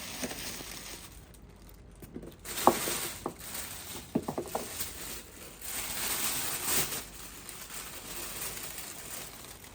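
Statue packaging being handled: rustling of wrapping with a few light clicks and knocks, then a longer rustle.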